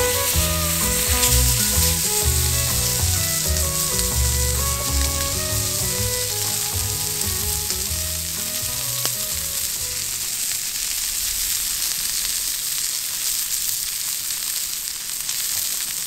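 Steak sizzling steadily in a pan on campfire embers. Soft background music with held, stepping low notes fades out over the first half.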